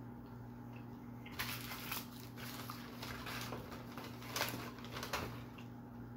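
Crinkling and handling of paper fast-food packaging, a fries carton and nugget boxes moved on a table, in short scattered crackles starting about a second in, over a steady low hum.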